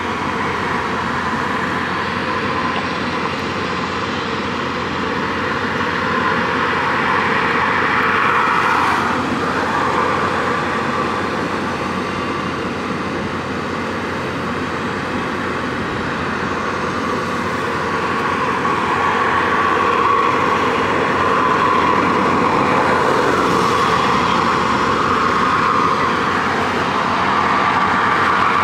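Steady motor-vehicle noise, swelling and fading slowly over several seconds without a clear engine note.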